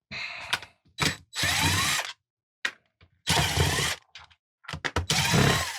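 Power drill-driver running in four short bursts, whirring up and stopping each time, backing out the screws of a jigsaw's housing, with a few clicks in between.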